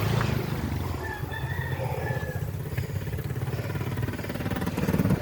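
A rooster crowing once, starting about a second in, over a steady low rumble of wind and riding noise.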